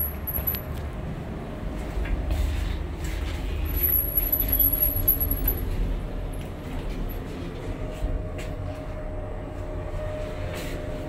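Passenger lift doors closing and the car riding up one floor: a steady low rumble of the moving car, with a thin high whine for a couple of seconds midway and a steady hum tone coming in near the end.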